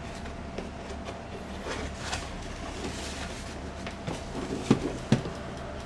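Cardboard toy packaging being handled: soft rustling and scraping as the inner box lid is lifted over a foam tray, with two short knocks close together near the end.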